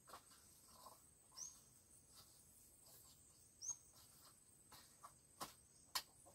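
Quiet outdoor garden background. A short, high, rising chirp repeats about three times, and a few faint, brief knocks come now and then.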